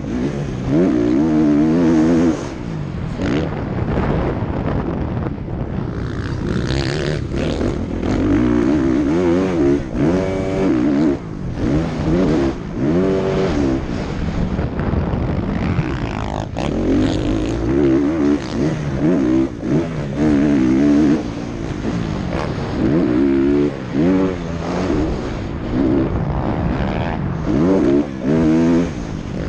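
Motocross bike engine revving hard and backing off again and again, its pitch climbing and dropping every second or two as the rider works the throttle around the track, heard from a helmet-mounted camera with steady wind rush.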